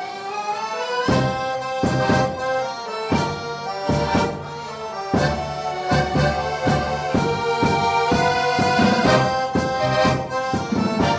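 Accordion orchestra playing a lively tune: a held melody over a steady beat of bass chords, which come in about a second in.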